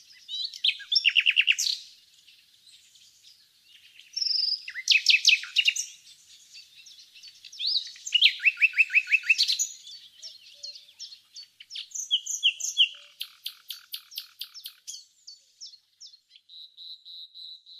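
Nightingale singing in separate loud phrases of rapid repeated notes with short pauses between them, ending in a softer drawn-out whistle near the end.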